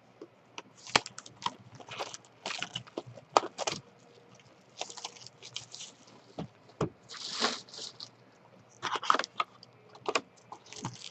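A box of baseball trading cards being opened and its packs handled: scattered clicks and taps of cardboard, with a few short rustles, the longest about seven seconds in.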